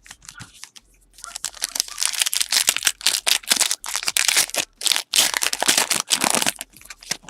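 Crinkling and tearing of a basketball card pack's foil wrapper, a dense crackle of quick clicks that starts about a second in and stops shortly before the end.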